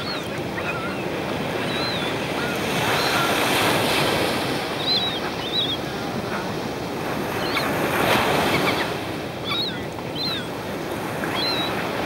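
Surf washing onto a sandy beach, swelling twice, about three seconds in and again about eight seconds in, with short high calls of silver gulls scattered through it.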